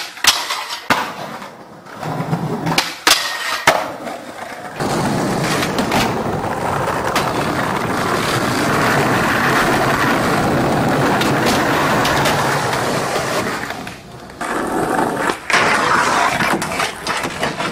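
Skateboard sounds: a few sharp tail pops and board landings, then wheels rolling loudly and steadily over pavement for several seconds, then a scraping ride along a ledge with more clacks near the end.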